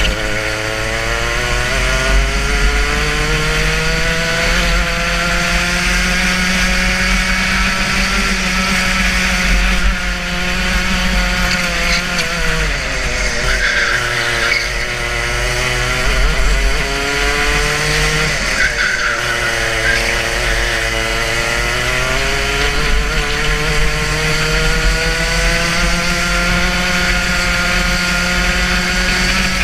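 Racing kart's two-stroke engine heard onboard, running hard around a lap. Its pitch climbs steadily and falls away sharply twice as the kart slows for corners, about halfway through and again about two-thirds in, then climbs again.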